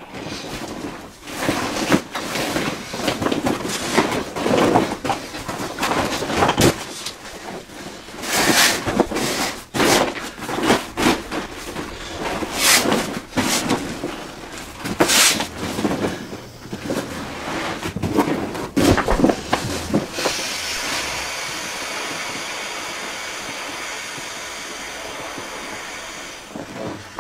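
Vinyl of a deflated PVC inflatable boat crinkling and rustling in irregular bursts as it is pressed and folded by hand. For the last several seconds a steady hiss takes over.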